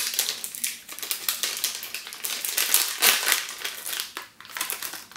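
Crinkly candy wrapper being pulled open and unwrapped from a chocolate bar by hand: a dense run of crackling rustles, with a brief lull a little after four seconds in.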